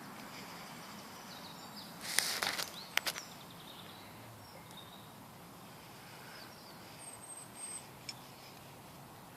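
Wild birds chirping faintly and intermittently against steady outdoor background noise. About two seconds in there is a short loud rustle, followed by a couple of sharp clicks.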